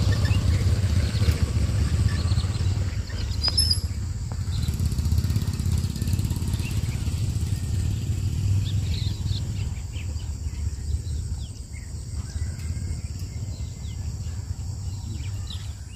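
Steady low rumble that eases off after about ten seconds, with faint bird chirps over it.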